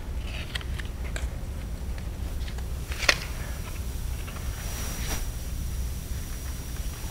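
Steady low hum with scattered light clicks and knocks, a sharper knock about three seconds in, and a faint high whine in the second half.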